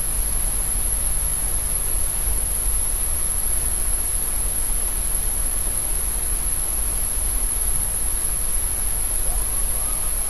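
Steady hiss and low hum of the recording's background noise, with a thin steady high tone, during a pause in the Quran recitation. Near the end a woman's chanting voice comes in faintly with gliding pitch.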